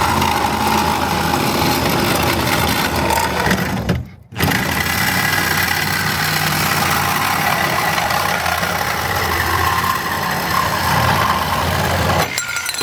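A power tool cutting through a metal exhaust pipe. It runs steadily, stops briefly about four seconds in, then starts again and stops near the end.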